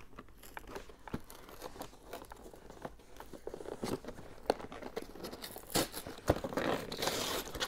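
A cardboard and plastic action-figure box being worked open by hand, giving scattered clicks and crinkles. It turns into a louder, denser stretch of crinkling and tearing near the end.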